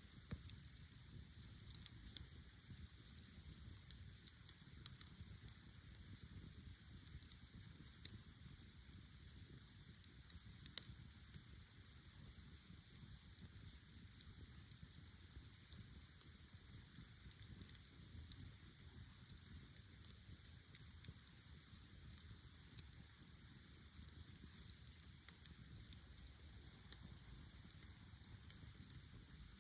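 Steady, high-pitched chirring of night-singing crickets, unbroken throughout, with a few faint clicks from the campfire crackling.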